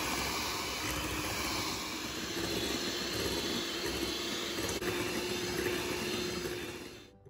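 Electric hand mixer running steadily, its beaters whipping eggs and sugar in a glass bowl. The motor cuts off abruptly near the end.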